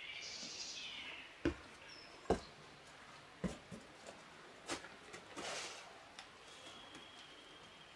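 Footsteps of a hiker climbing over rocks and dry leaves: irregular knocks of boots on stone, with rustling of leaves and gear. A faint thin high whistle is held near the end.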